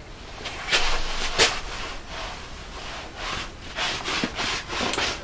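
A dozen or so short, irregular rubbing and scraping strokes against wood.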